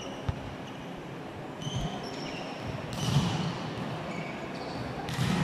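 A volleyball hitting hard twice, about two seconds apart, each strike ringing out in the echo of a large indoor sports hall. A few brief high-pitched squeaks come before the first strike.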